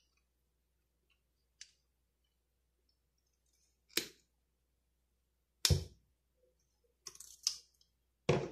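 Combination pliers cutting one coil off the small return spring of a push-button shower diverter, heard as a few separate sharp clicks. There is a faint click, then a sharp snap about four seconds in, a louder knock about a second and a half later, and a few light clicks near the end.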